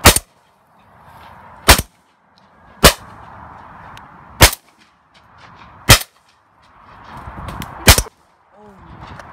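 Six shotgun shots, one every one to two seconds, each cut off abruptly into a moment of silence, with steady outdoor background noise between them.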